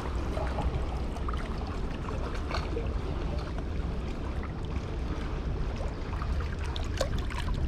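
Steady outdoor waterside noise: wind rumbling on the microphone, with water moving and a few faint small clicks.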